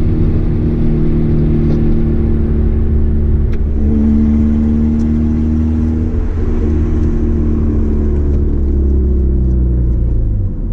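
Car engine and road noise heard from inside the cabin while driving: a steady engine note that shifts slightly in pitch about four seconds in and eases off suddenly near the end.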